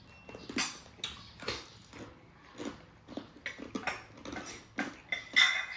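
Close-miked eating sounds: irregular chewing, slurping and short clicks of utensils on dishes, about a dozen separate sounds, the loudest a little after five seconds in.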